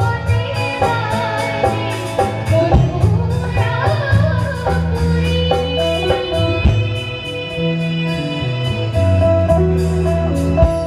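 A woman singing into a microphone through a PA system, over instrumental accompaniment with a fast, steady beat.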